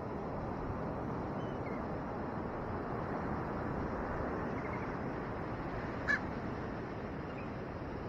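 A common raven gives one short, loud call about six seconds in, with a few faint calls before it, over the steady rush of surf breaking on the beach.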